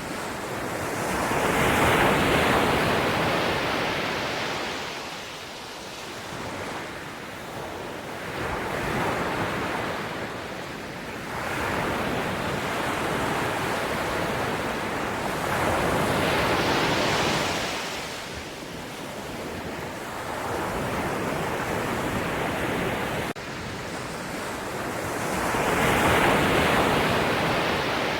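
Sea waves breaking and washing ashore. The surf swells and falls back every few seconds, about five surges in all, the loudest near the start and near the end.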